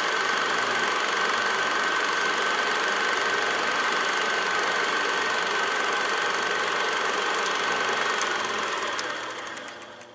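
Steady engine-like running noise with a thin steady high tone through it, fading out over the last couple of seconds.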